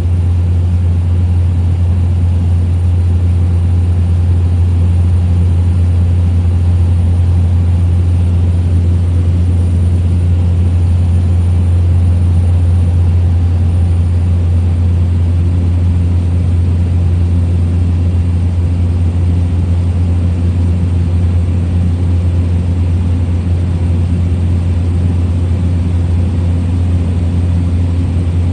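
Small propeller plane's engine and propeller droning steadily in cruise, heard from inside the cabin: a loud, even low hum with fainter steady tones above it.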